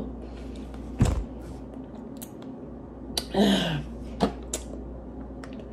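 A sharp knock on the tabletop about a second in, then a short vocal sound falling in pitch with a breathy exhale a little past halfway, followed by a click and a few light ticks of things being handled at the table.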